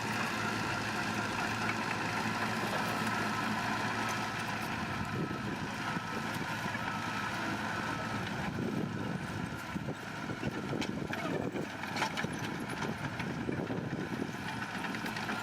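Heavy construction machine engine running steadily, with scattered short knocks and clatter in the second half.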